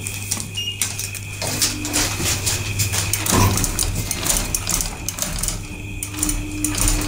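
Car doors of a 1989 KONE traction scenic elevator sliding shut, with clicks and knocks from the car's button panel and door equipment over a steady low hum. A steady mid-pitched tone sets in near the end.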